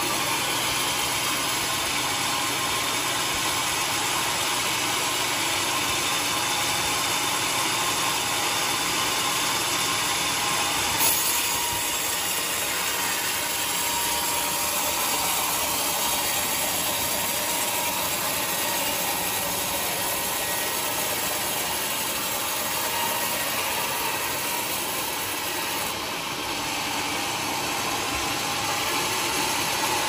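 Homemade band sawmill running, its blade cutting lengthwise through a teak log with a steady mechanical whir and hiss. One short sharp click about a third of the way through.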